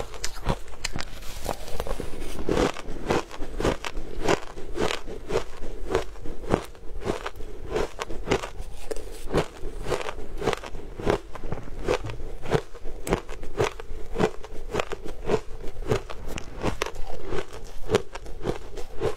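Shaved ice being chewed: a continuous run of crisp crunches, about two to three a second.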